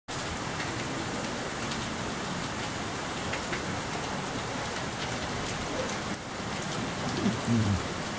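Steady patter and splash of falling water, like heavy rain on a surface. A brief, louder low sound breaks in near the end.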